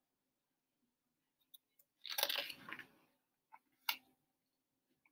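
A page of a hardcover picture book being turned: a papery rustling swish lasting about a second, starting about two seconds in, then a single sharp click as the book is handled just before four seconds, with a few faint ticks around it.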